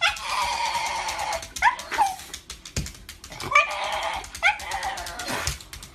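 Black-and-tan Shiba Inu whining and yelping: a long held whine, then several short yelps that sweep sharply up in pitch, between further whining calls, with sharp clicks in between.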